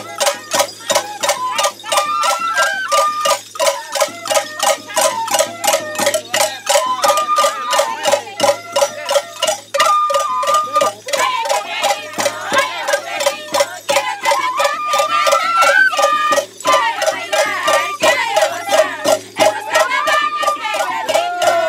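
Andean carnival folk music: several wooden flutes playing a stepping melody together over a steady drum beat.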